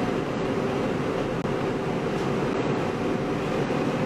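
Steady room hum and hiss with a faint constant tone, unchanging throughout.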